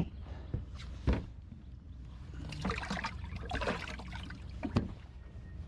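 Water splashing and trickling, with a few knocks against a small boat: a sharp knock about a second in and another near the end.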